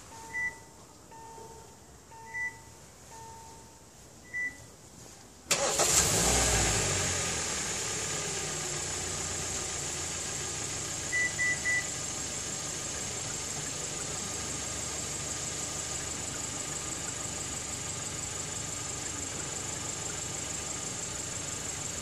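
Kia K7 (Cadenza) engine being remote-started: a pulsing electronic tone and three short chirps, then about five and a half seconds in the starter cranks and the engine catches, loudest just after it fires, then settles to a steady idle. Three quick beeps sound a few seconds after the start.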